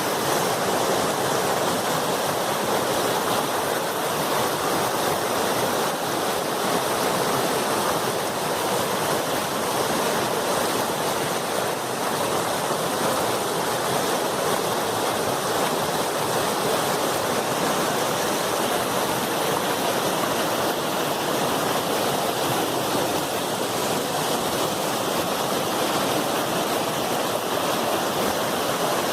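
Fast river water rushing over rocks: a loud, steady roar of flowing water.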